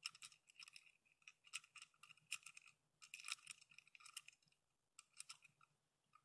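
Faint, irregular clicking and scraping of small hardware being fiddled by hand: a nut and threaded standoff worked onto a DB9 connector inside a plastic electronics enclosure, coming in short bouts with brief pauses.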